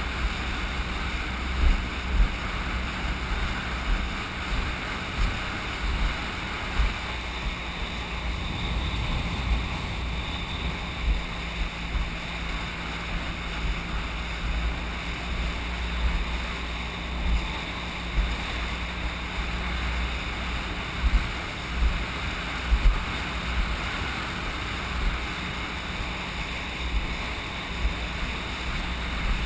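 Inflatable boat under way on choppy sea: a steady rush of wind and water over the action camera's microphone, with an outboard motor humming faintly beneath. Irregular low thumps come all through.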